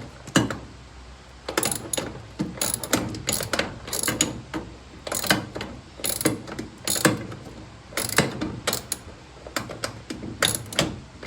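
Ratchet socket wrench with an extension clicking in short repeated bursts as it is swung back and forth, undoing a nut on the brake pedal mounting.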